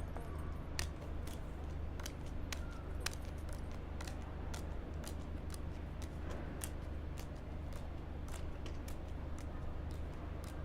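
Irregular sharp clicks and snaps of playing cards being handled and dealt at a card table, about one or two a second, over a steady low hum.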